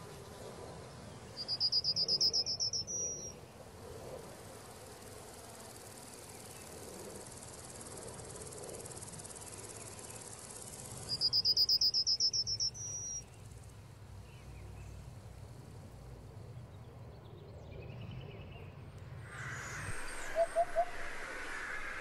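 Chipping sparrow singing its dry, rapid, high trill twice, each trill lasting about two seconds.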